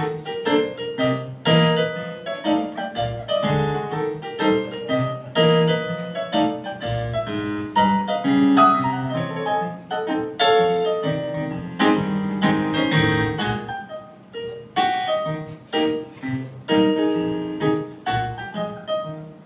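Stage keyboard played in a piano voice, solo without singing: a busy run of chords and melody notes, with a short lull about two-thirds of the way through.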